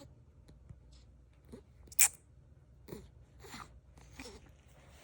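A sleeping one-year-old baby snoring softly, a short nasal snort-like breath every second or so, each falling slightly in pitch. One sharp click stands out about two seconds in.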